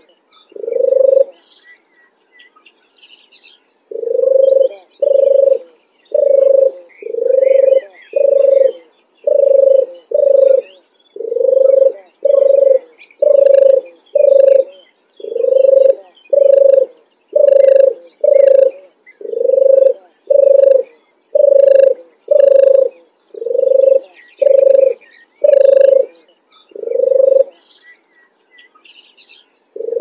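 European turtle dove purring: a low, soft, rolling coo repeated over and over, mostly in pairs about every second and a half, with a pause of a couple of seconds near the start and near the end. Small birds chirp faintly in the background.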